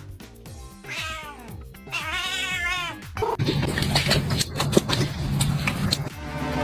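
A cat meowing twice, each meow about a second long with a wavering pitch, over background music. From about halfway the music gets busier and noisier, with sharp clicks.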